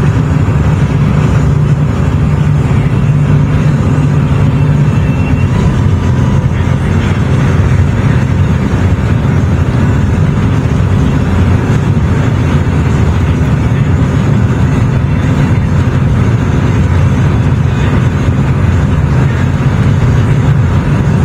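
Steady drone of a car on the move: road and engine noise with a low rumble, holding an even level without change.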